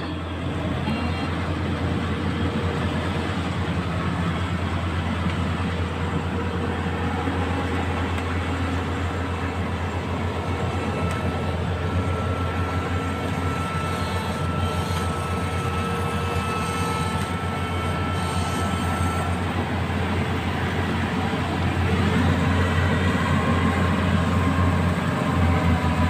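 Rice combine harvesters' diesel engines running steadily in the field, a constant low drone with a thin higher whine for several seconds in the middle. The sound grows louder about 22 seconds in as a machine comes closer.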